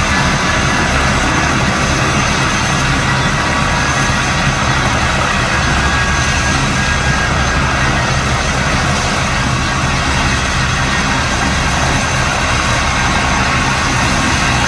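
Helicopter's turbine engines running while it sits on the ground: a loud, steady whine over a low rumble, unchanging throughout.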